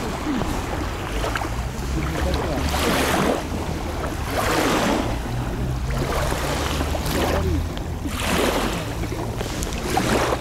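Wind buffeting the microphone: a steady low rumble with gusty rushes of noise every second or two.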